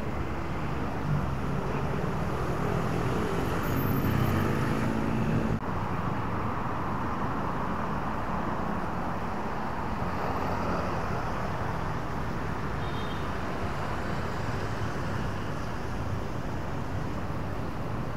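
Road traffic noise: cars running nearby. A vehicle engine sounds close and grows louder until it breaks off suddenly about five and a half seconds in. Steady traffic follows, with a car passing about ten seconds in.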